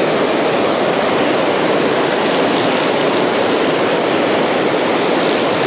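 Steady rush of heavy river current pouring through a whitewater riffle, the flow raised by water released from an upstream dam.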